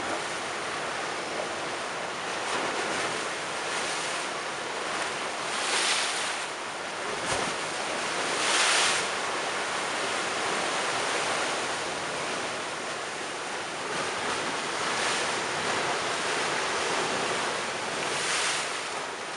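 Storm-surge sea waves breaking against a stone sea wall and over concrete steps, a steady rush of surf with water splashing and pouring back off the steps. Louder crashes come about six, nine and eighteen seconds in.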